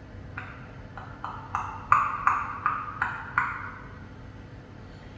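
A quick run of about nine sharp clicks or knocks, each ringing briefly, about three a second. They grow louder midway, then stop.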